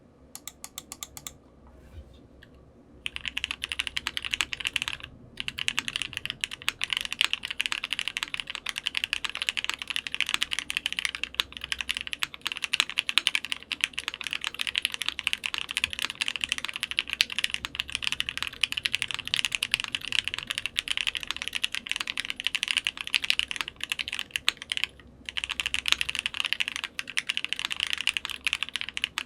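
Typing on a Metakey TENET70 keyboard with lubed Gateron Ink Black linear switches, a PC plate and GMK keycaps. A few scattered keystrokes come first, then fast continuous typing begins about three seconds in: a dense stream of key clacks, broken by two short pauses.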